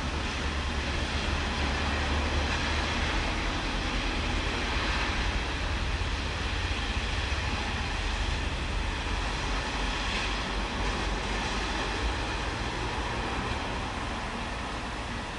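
Thunderstorm: a long, low rumble of rolling thunder over a steady hiss of rain. The rumble swells in the first few seconds and eases off a little near the end.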